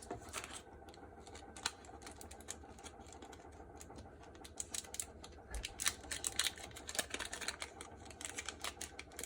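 Light scattered clicks, taps and rustles of a paper button insert being handled and set into the die of a button press. They are busier in the second half.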